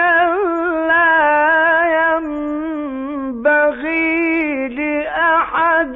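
A male Qur'an reciter's voice chanting in a melodic tajweed style, drawing out long, wavering notes in a high register, with brief breaks a little past three seconds and again near five seconds.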